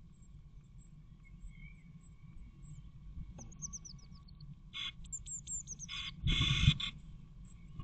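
Blue tit nestlings begging with thin, high chirps as an adult blue tit feeds them in the nest box, the calls growing busier from about five seconds in. Just after six seconds comes a short, loud rustling burst from the birds moving in the nest.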